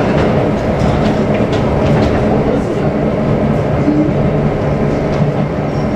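A train running past at close range: a loud, steady rumble of wheels on the rails with a low hum that keeps on without a break.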